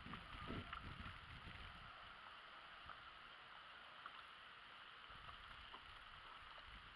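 Near silence: faint open-water ambience, with low water lapping against a small aluminum boat's hull over the first second or so and a few faint ticks.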